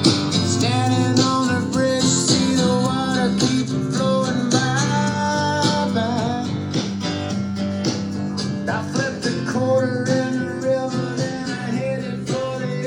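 Background music led by acoustic guitar, with a sung or melodic line over it.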